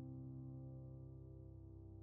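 Soft background music: a sustained chord of held tones, slowly fading.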